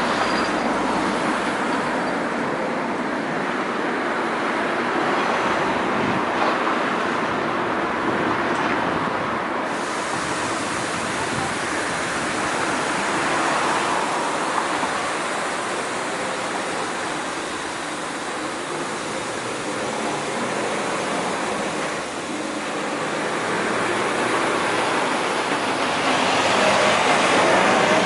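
Trains rolling over the station approach tracks: a steady rumble of wheels on rail. It grows louder near the end as a locomotive-hauled Intercity passes close below.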